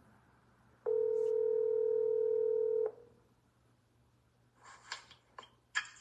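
Outgoing phone call ringing: one steady ringback tone of about two seconds, followed near the end by a few short clicks and rustles.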